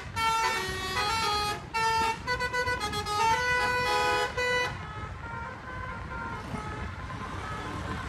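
A bus's 'telolet basuri' melodic multi-trumpet horn playing a quick tune of changing notes, stopping after about four and a half seconds. After that only engine and road noise remain.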